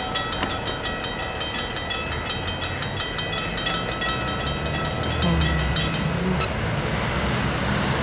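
Freight train of covered hopper cars rolling past with rapid metallic clicking, which stops abruptly about six seconds in. A truck's engine then rises as it drives past close by.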